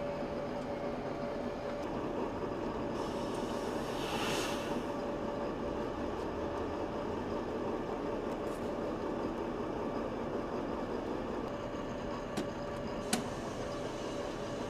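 A steady machinery drone with a constant hum underneath it. A brief hiss comes about four seconds in, and two sharp clicks come near the end, the second one louder.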